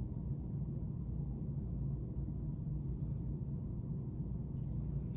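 Steady low rumbling room background noise with no distinct sound events.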